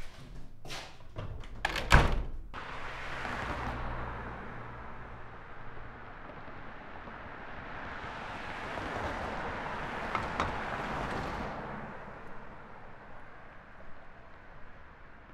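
A heavy door clunks shut about two seconds in, after a few knocks and clicks of the latch. Then a steady rushing noise swells and fades away over several seconds.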